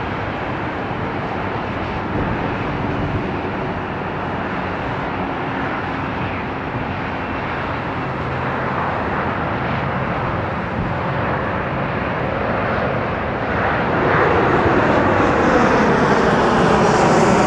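Boeing 777-300ER's twin jet engines at takeoff power as the airliner rolls, lifts off and climbs away: a steady jet rumble that grows louder about 14 seconds in, taking on a sweeping, phasing tone as the plane climbs.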